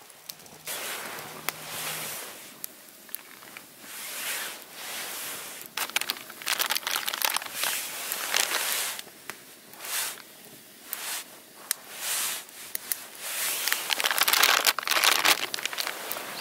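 Irregular rustling and crinkling in short bursts, louder towards the end.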